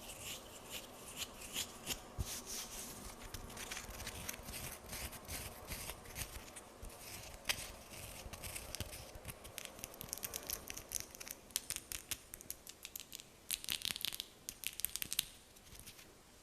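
Close-miked ASMR hand sounds: fingernails tapping and scratching on hands, a dense run of crisp clicks and crackly rustles, with a louder burst of tapping near the end.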